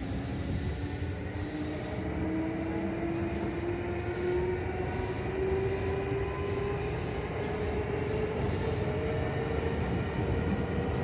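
Traction motor and gear whine of a Kintetsu 2800 series resistance-controlled motor car (Mitsubishi MB-3110A motors) rising steadily in pitch as the train accelerates, over the rumble of wheels on rail. This is a low-pitched car, with an odd sound from the drive couplings that the uploader singles out as unlike any ordinary low-pitched car.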